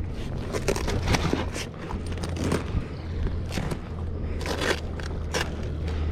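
Irregular scraping, crackling and knocking handling noises on a kayak, over a steady low rumble.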